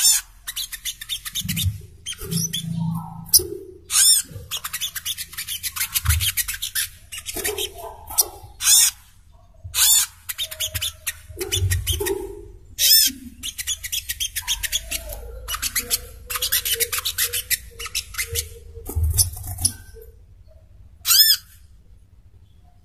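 Sogok ontong (burung kelapa) songbird calling: repeated bursts of rapid, high chattering trills mixed with sharp, high whistled notes, separated by short gaps. It falls quieter near the end, with one more short call.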